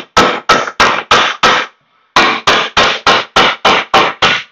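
Rapid hammer blows on the end of the front axle shaft, about three a second, driving its splines back into the new wheel hub bearing so the shaft won't spin while the axle nut is tightened. The hammering pauses briefly about two seconds in, then resumes.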